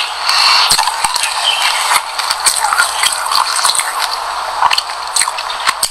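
Close-miked crunching of a mouthful of sesame seeds mixed with passion fruit and yogurt being chewed: a fast, uneven run of tiny crackles and clicks.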